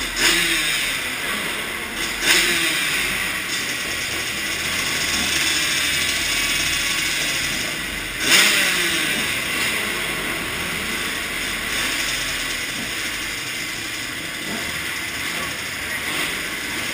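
Motocross bike engines running inside a large hall, with sharp throttle blips near the start, about two seconds in and about eight seconds in.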